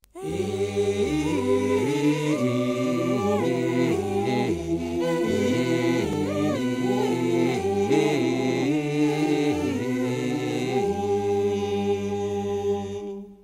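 Gospel vocal group singing a cappella in close harmony, several voices holding chords and moving between them, fading out near the end.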